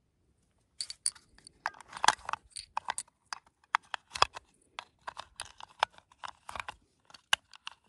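Brass 6.5mm Creedmoor rifle cartridges clinking and rattling against each other in the hands: an irregular run of small, sharp metallic clicks starting about a second in.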